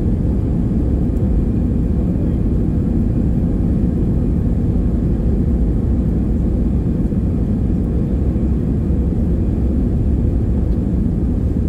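Steady low rumble inside the cabin of an Airbus A318 airliner rolling slowly along the runway before its take-off roll, its jet engines running at low thrust. The level stays even, with no spool-up.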